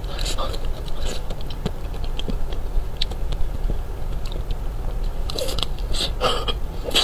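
Close-miked biting and chewing of a crisp-shell ice cream bar: the hard coating cracks and crunches. The crunching is loudest in the first second and again from about five seconds in.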